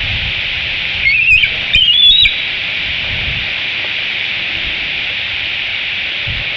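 Juvenile bald eagle giving two high, wavering, chittering calls in quick succession about a second in, over a steady high hiss.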